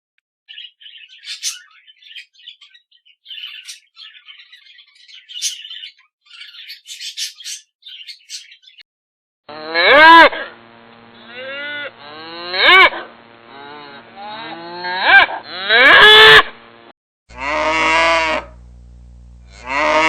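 Cattle mooing: four loud, drawn-out calls, each rising in pitch, about halfway through, with another long call near the end. Faint high chirping comes before them.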